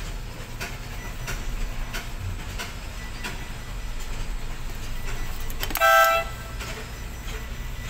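A single short horn toot about six seconds in, the loudest sound, over the steady low hum of a tower crane's cab with faint scattered clicks.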